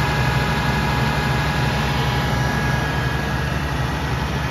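Oliver 1550 tractor's gasoline engine idling steadily with an even, fast low pulse.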